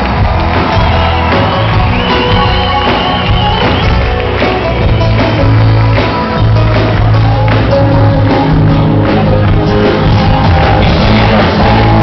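Live band playing on stage, with an acoustic guitar and a male lead singer, heard loud from inside the audience, with the crowd shouting along.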